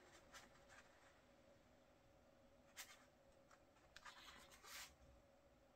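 Faint rustle and flick of a glossy photobook page being turned by hand: a short paper sound about three seconds in, then a few more from about four to five seconds in, over a faint steady hum.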